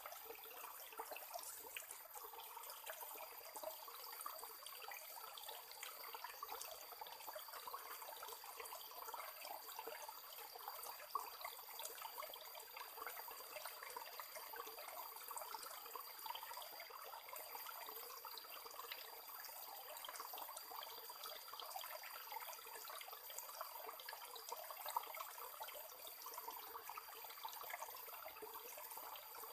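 Faint, steady trickle of running water, with a thin, steady high tone coming in about three seconds in.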